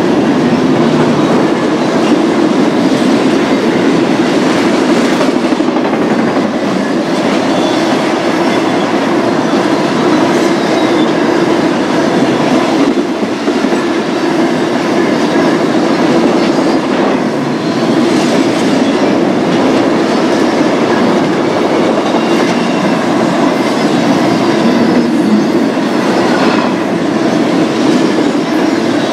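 BNSF intermodal freight train rolling past, its cars' wheels running steadily on the rails.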